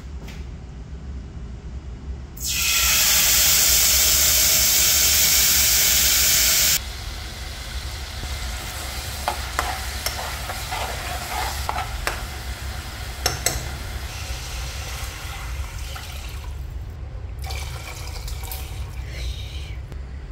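Contents of a pressure cooker poured into a pot of hot oil and spices, sizzling loudly for about four seconds before cutting off suddenly. Then the gravy simmers and bubbles while a spoon stirs it, with a few sharp metal clinks.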